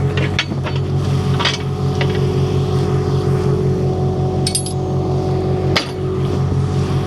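Tractor engine running steadily with a low, even throb, with scattered light metallic clinks and knocks.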